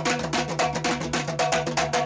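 Brazilian percussion music with timbal hand drums playing a fast, dense groove of about ten strokes a second, over held low and mid tones.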